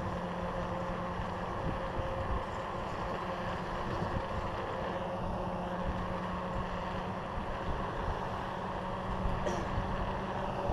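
Dump truck's diesel engine running steadily just ahead, a low droning hum, mixed with road and wind noise from a bicycle drafting close behind it.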